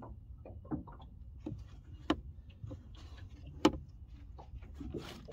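Irregular knocks and clicks on a small boat over a low steady rumble, with two sharper knocks about two and three and a half seconds in.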